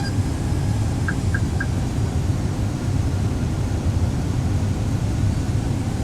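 Steady low rumble of an airliner cabin on final approach: engine and airflow noise. Three short, faint beeps come about a second in.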